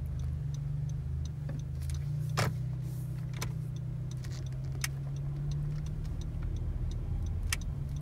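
Steady low engine and road hum inside a 2016 Honda Civic's cabin while driving, with the turn-signal indicator ticking at an even pace and a few sharper clicks.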